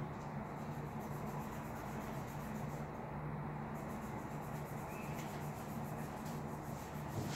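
Felt-tip marker scribbling on paper in quick repeated strokes as a drawing is coloured in, over a steady low hum.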